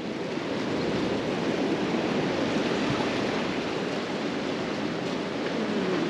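Ocean surf washing on a sand and cobble beach, a steady rushing noise.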